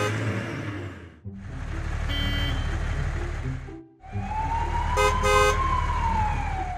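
Sound effects of two passing trucks: a steady engine rumble with a brief horn beep, cut off just before four seconds. A second engine rumble follows, with a fire-engine siren wail that slowly rises and falls and two short horn beeps about five seconds in.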